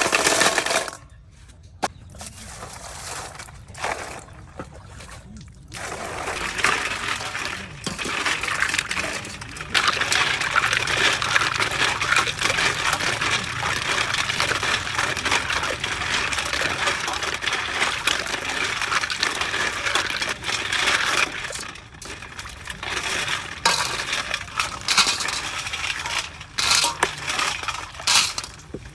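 Snail shells clinking and rattling against each other and their container, with a steady hiss running under the clatter through the middle stretch.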